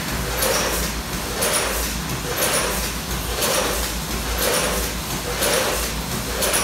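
Multihead-weigher vertical form-fill-seal packing machine running, repeating a short mechanical clack with a hiss about once a second as each sealed bag is made and dropped.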